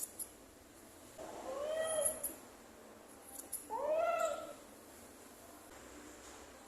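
A cat meowing twice, each a drawn-out call of about a second that rises and then falls in pitch.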